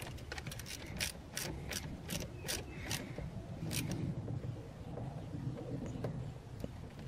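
A small hand ratchet clicking as it turns the nut on a car battery's negative terminal clamp. There are a dozen or so sharp clicks in uneven strokes over the first four seconds, then it goes quieter.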